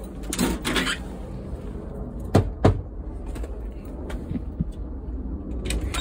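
A metal storm door rattling as it is handled and swung open, then two sharp knocks on a wooden front door, about a third of a second apart, a little over two seconds in.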